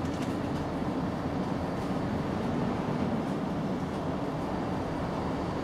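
Steady low rumble of distant vehicle traffic, with no clear break or distinct event.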